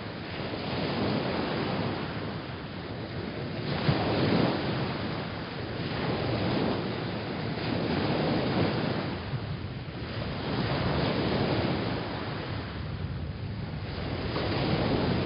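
Ocean waves washing in, each swell of rushing water rising and falling away every few seconds.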